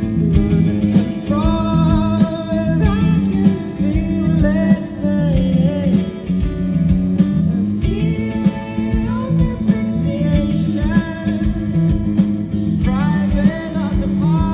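Live rock band performance: a male lead singer over electric guitar, bass and drums, loud and continuous.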